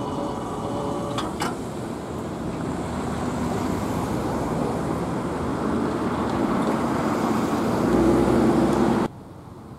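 Road traffic at a railroad crossing: cars pulling away and driving over the tracks, with engine and tyre noise growing louder as a car passes close near the end. The sound cuts off suddenly about nine seconds in.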